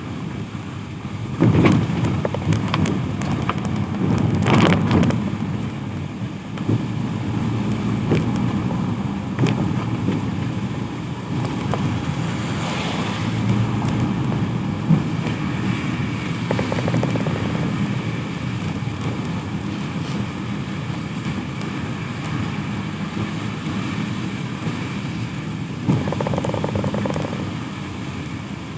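Road traffic on a wet road in the rain: vehicles passing with steady tyre hiss, the loudest pass a couple of seconds in.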